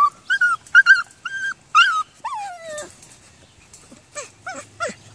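Twelve-week-old puppies whining and yipping: a quick run of short, high whines, then a longer whine that slides down in pitch about two seconds in, and a few shorter falling whines near the end.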